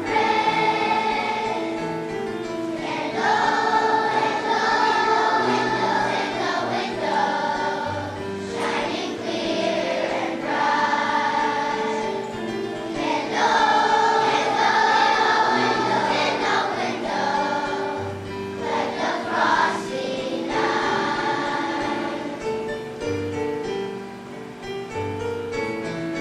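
A children's choir of young elementary-school students singing a song in unison, with instrumental accompaniment carrying a low bass line.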